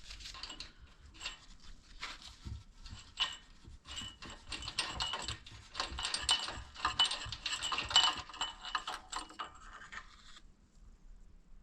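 Small metal engine parts being handled: a run of clicks, scrapes and light rattles as a carburettor float bowl is worked off the engine. The handling is busiest between about four and ten seconds in, then stops.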